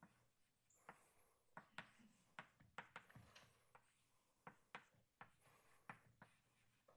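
Chalk on a blackboard, heard faintly: a dozen or so short, irregular taps and brief scratches as an equation is written out.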